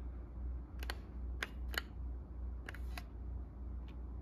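Plastic trigger and button clicks of a handheld infrared thermometer gun: about six sharp clicks, some in close pairs, as the laser is switched on and off.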